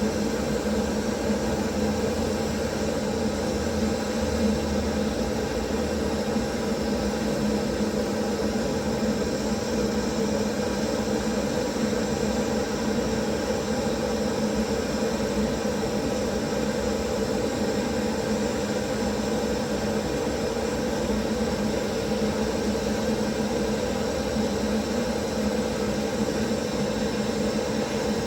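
Gas torch flame burning with a steady hiss, heating the brazed joints of a refrigeration filter drier to unsolder it.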